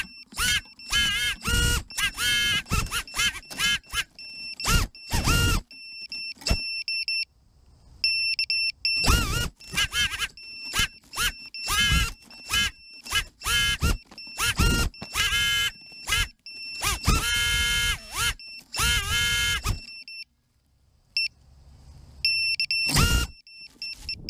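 Brushless motors of a 6S FPV quadcopter stuck in tree branches spinning up in repeated short bursts, each rising and falling in pitch, as the drone is armed, disarmed and flipped in turtle mode to free it. A thin high-pitched beeping sounds on and off between bursts. Heard through the drone's onboard camera.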